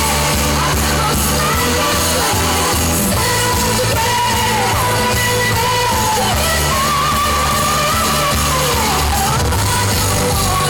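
Loud pop music with a sung melody over heavy bass, playing for a stage dance routine.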